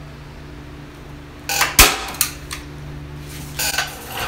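Hand staple gun firing a staple to fasten the cedar-strip sheer plank to a station mould: one sharp, loud snap a little under two seconds in, with a few lighter clicks and short metallic rattles after it.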